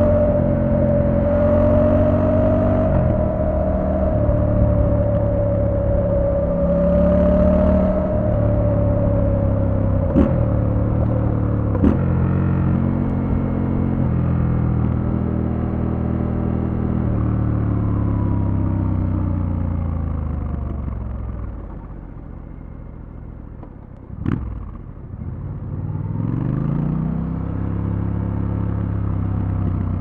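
Triumph Scrambler 1200 X's 1200 cc parallel-twin engine under way: the revs climb and drop back in steps as it shifts up, with a steady whine alongside for the first ten seconds or so and a couple of sharp clicks. About twenty seconds in the engine falls away toward idle, a click sounds, and it picks up and climbs again near the end.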